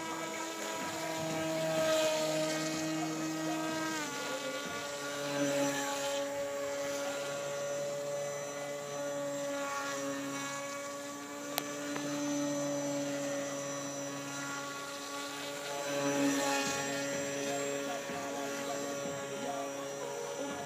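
Radio-controlled model airboat's motor and air propeller running with a steady buzzing whine. The pitch drops about four seconds in as the throttle eases and it swells louder again near the end. One sharp click is heard midway.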